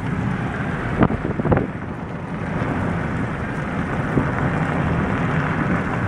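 Road noise inside a moving car on an unpaved road: a steady rumble of tyres, with two thumps about a second in, half a second apart.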